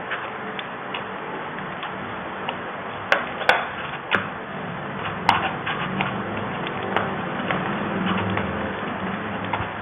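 Fingers mixing and pressing a crumbly khoya filling on a ceramic plate, with a handful of sharp clicks as the hand knocks against the plate, over a steady background hiss.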